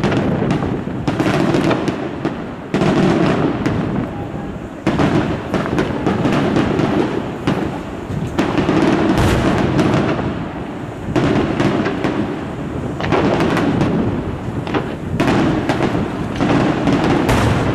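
Aerial firework shells bursting in a dense run, several bangs a second over a continuous low rumble, with crackling stars between them.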